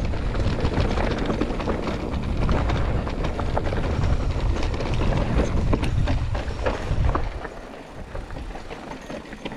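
Mountain bike rattling over rough, rocky trail, with heavy wind rumble on the microphone and many small clicks and knocks from the bike. The noise eases about eight seconds in.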